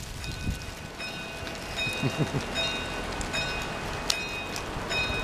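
Level crossing warning alarm sounding in repeating high electronic tones as the barriers begin to lower, over a steady hiss of wind and ambient noise.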